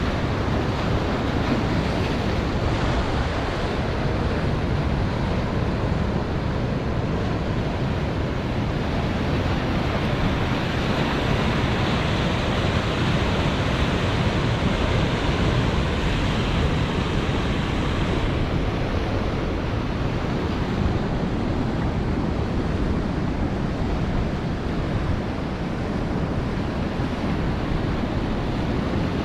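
Ocean surf washing onto a sandy beach in a steady rush of waves, with wind blowing across the microphone.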